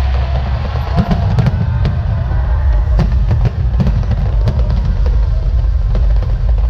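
Aerial firework shells bursting in a dense barrage: a continuous deep rumble of booms with several sharper bangs and crackles over it.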